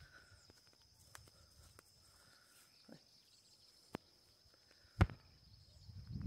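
Quiet rural outdoor ambience with a faint steady high-pitched hum and a few soft ticks, broken by one sharp click about five seconds in.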